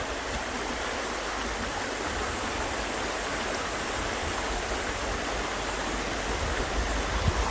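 River water flowing steadily, an even rushing sound with a low rumble underneath.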